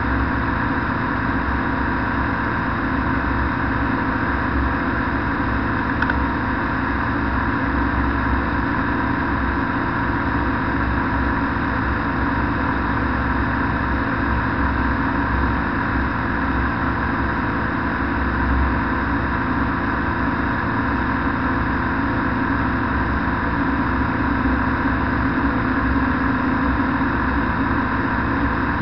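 Flex-wing microlight trike's engine and propeller running at a steady cruise in flight, a continuous drone that hardly changes in level.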